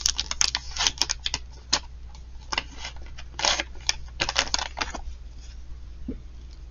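Irregular light clicks and brief scratchy rubs from painting supplies being handled close by, a quick uneven run that stops about five seconds in.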